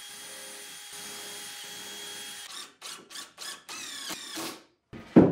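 DeWalt cordless drill and impact driver driving screws through a plywood drawer bottom into pine drawer sides. There is a steady motor whine for about two and a half seconds, then about five short trigger bursts, each rising in pitch. A loud thump comes near the end.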